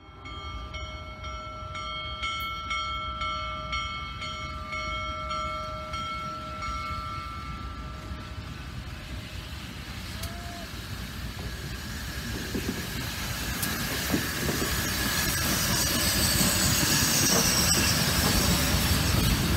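Union Pacific Big Boy 4014 steam locomotive blowing its steam whistle in a long chord of several tones, broken twice briefly. It then grows louder as it approaches and passes, with steam hissing over the rumble of the running gear.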